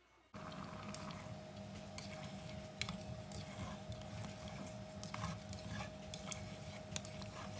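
Plastic rice paddle stirring rice in coconut milk inside a rice cooker's pot, with short scrapes and taps of the paddle against the pot and liquid squishing, over a steady hum. The sounds start about a third of a second in.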